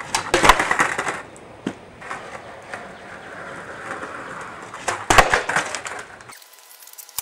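Skateboard on concrete: sharp clacks of the board popping and hitting the ground about half a second in, then wheels rolling. About five seconds in come more clacks as the board clatters down after a missed fakie 360 flip. About six seconds in the sound cuts to a much quieter background.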